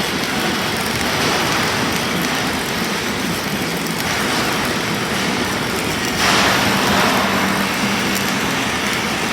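Self-shielded flux-cored arc welding with Lincoln Innershield NR305 wire: a steady sizzling crackle of the arc, louder in stretches about four and six seconds in, over a low steady hum.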